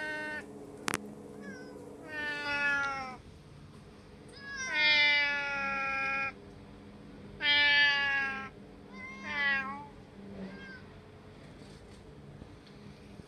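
Hoarse-voiced domestic tabby cat meowing repeatedly: about five drawn-out meows, each falling in pitch, the longest nearly two seconds, with a faint short one near the end.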